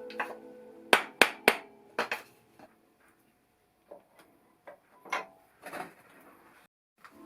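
A hammer striking metal engine parts during a motorcycle engine teardown: three sharp blows in quick succession about a second in, two more near two seconds, then scattered lighter knocks and clinks.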